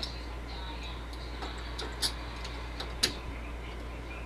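Scattered light clicks and taps of hand tools working on a door's latch hardware, with two sharper clicks about a second apart near the middle, over a steady low hum.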